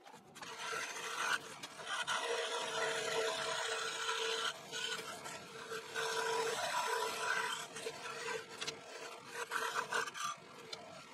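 Scroll saw starting up about half a second in and cutting African mahogany: a steady hum with the rasp of the blade sawing through the wood, dipping briefly a few times as the piece is turned.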